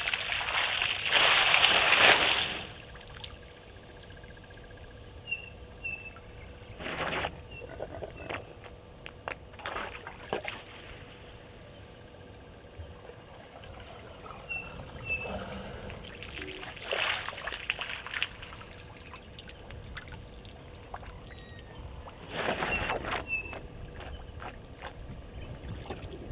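African elephant drinking at a waterhole. Water sloshes and pours from its trunk in bursts: a long loud one at the start, then shorter ones every few seconds.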